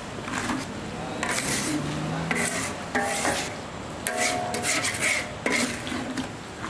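Metal spatula scraping against a large steel wok as it stirs and turns a thick chilli, turmeric and lemongrass spice paste, in repeated scraping strokes about one or two a second.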